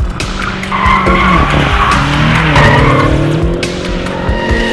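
BMW M5's twin-turbo V8 revving hard while the car drifts. About a second in the tyres begin squealing and the sound gets louder, and the engine note dips and then climbs again.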